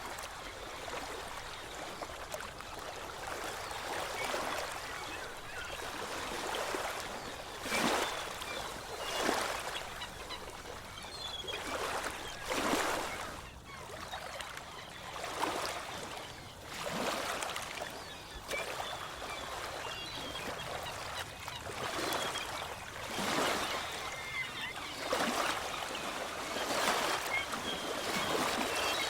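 Sea waves washing in and drawing back, a swell of rushing water every second or two over a steady hiss.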